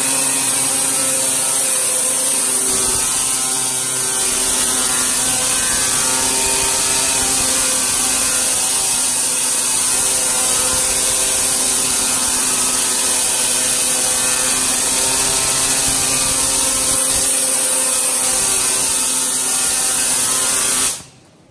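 Etching engraving head of a Steeltailor Legend B52 CNC plasma table scribing lines into sheet steel. It makes a loud, steady buzz with a high hiss, which cuts off suddenly near the end.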